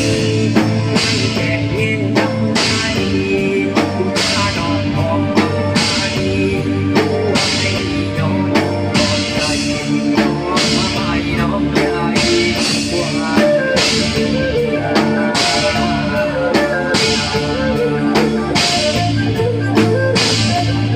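Isan-style band music: a drum kit keeps a steady beat under a melodic lead line that bends and wavers in pitch, with guitar.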